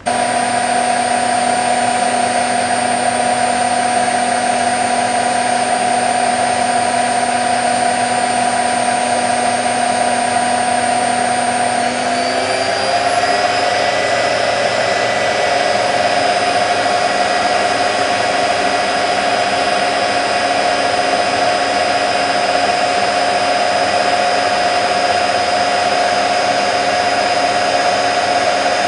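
Candy Nova CN146 washing machine in a high-speed final spin, its motor and drum giving a loud, steady whine. About twelve seconds in, the pitch of the whine shifts, then holds steady again.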